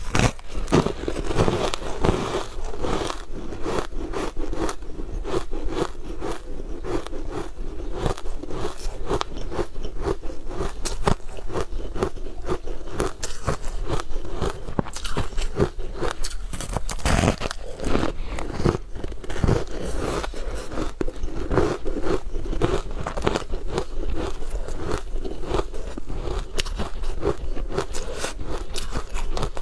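Close-miked eating sounds: biting into and chewing a crumbly green cake, with many small irregular crackles and crunches throughout.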